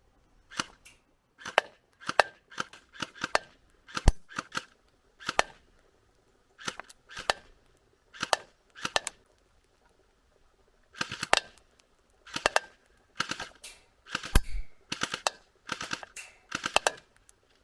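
ASG Arsenal SLR105 (AK-74) battery-powered airsoft gun firing 6 mm plastic BBs. It gives a long string of separate sharp clacks, singly and in quick pairs, with a pause of about two seconds near the middle.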